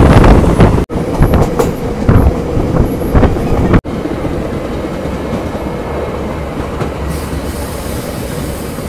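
Diesel multiple-unit (DEMU) passenger train running, its wheels clacking over the rail joints and the coach rattling, heard from inside by an open door. The sound breaks off abruptly about a second in and again about four seconds in, and after that it settles to a quieter, steadier rumble.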